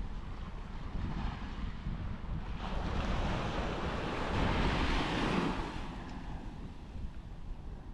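Sea surf on a beach with wind buffeting the microphone. A wave breaks and washes in with a swelling hiss from about three seconds in, fading again about three seconds later.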